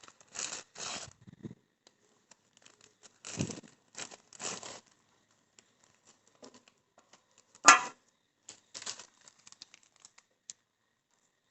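Plastic and bubble-wrap packaging crinkling and rustling in short bursts as clay samples are unwrapped by hand, with one sharper, louder crackle a little past the middle.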